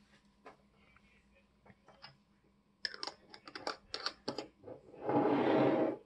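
Small hard clicks and taps of an ink bottle's cap being handled and screwed onto the bottle, then a rushing scrape of about a second near the end as a hand sweeps across the wooden desk.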